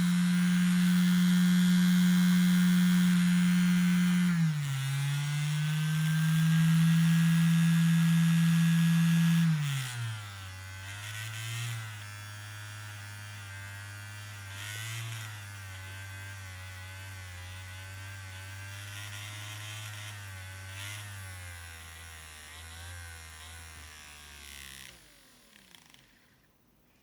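Homemade model tornado siren sounding a steady tone, which dips briefly about four seconds in and recovers. About ten seconds in it drops to a lower, much quieter pitch and winds down in steps, fading out shortly before the end.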